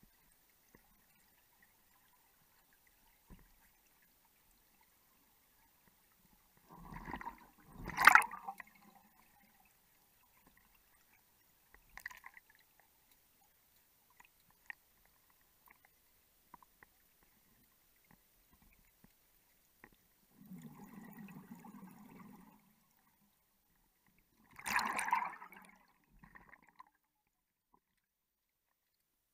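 Underwater sounds on a closed-circuit rebreather cave dive. Mostly quiet, broken by a few short bursts of water noise. A sharp knock about eight seconds in is the loudest sound, a low rushing noise lasts about two seconds later on, and another short burst comes near the end.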